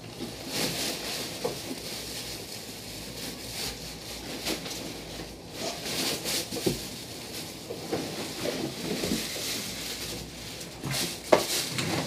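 Plastic wrapping and a cardboard box rustling intermittently as packed parts are handled and lifted out. There are scattered light knocks, and one sharp knock near the end is the loudest sound.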